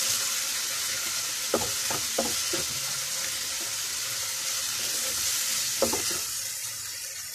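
Chopped onion, tomato and capsicum masala sizzling in a nonstick kadhai as a spatula stirs it, with a few short scrapes of the spatula against the pan. The sizzle gets quieter near the end.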